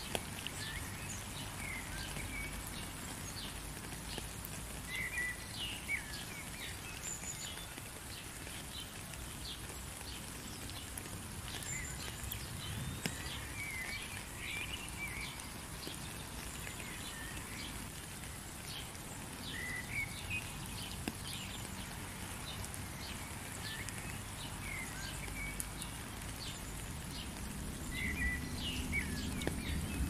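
Steady rain patter under birds chirping at intervals, short quick calls throughout. The low background grows louder near the end.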